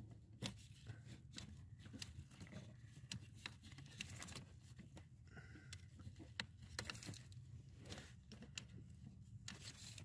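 Faint, irregular clicks and scraping as a 2007 Chevy Silverado's brake light switch is wiggled loose from the brake pedal shaft under the dash.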